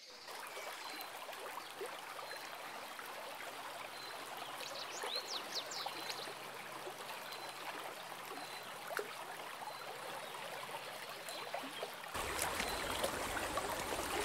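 Shallow stream running over rocks, a steady rushing trickle, with a few short high chirps about five seconds in. The water sound grows fuller and a little louder near the end.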